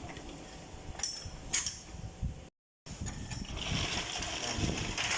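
Light metallic clinks and ticks of hand tools being handled, with the sound cutting out completely for a moment partway through, then a faint hiss.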